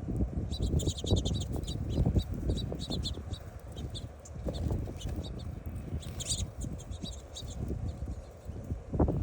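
Birds chirping in many short, quick calls over a constant low rumble.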